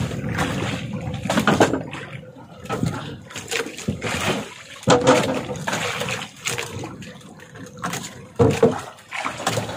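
Water sloshing and lapping around a small wooden fishing boat at sea, coming in irregular surges.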